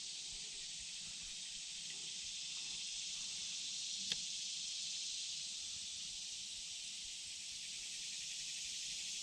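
Steady high-pitched drone of an insect chorus, with one faint click about four seconds in.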